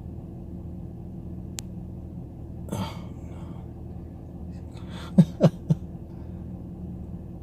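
Car engine idling with a steady low hum inside the cabin. About five seconds in, a person coughs three times in quick succession.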